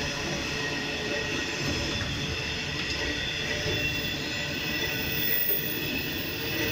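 Freight train of open box wagons rolling past at speed: a steady rumble of steel wheels on rail with a high, steady whine over it.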